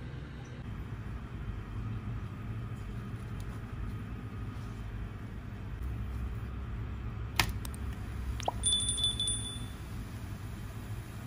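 Steady low rumble from the stove under a frying pan where a crepe is cooking. About seven seconds in comes a sharp click, then a short bell-like ding from a subscribe-button animation.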